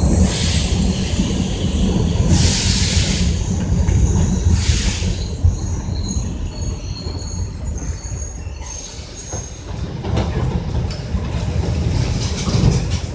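Subway train running, heard from inside the car: a steady low rumble of wheels on track with bursts of hiss and thin, high wheel squeal. The level drops about two-thirds of the way in as the train slows for the station.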